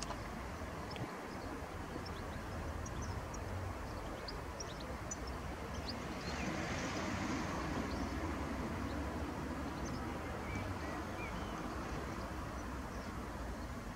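Outdoor background noise: a steady low rumble that swells for a couple of seconds around the middle, with faint, short, high chirps scattered through.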